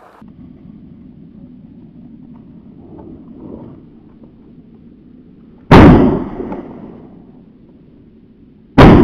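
Two shotgun blasts from a double-barrelled shotgun, about three seconds apart, each with a short echoing tail: both barrels fired in turn, a double.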